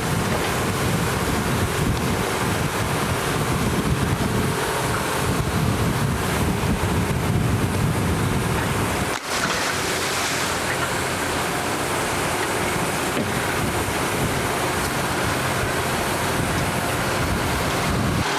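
Wind buffeting the microphone over rushing, churning sea water. The sound drops out for a moment about nine seconds in.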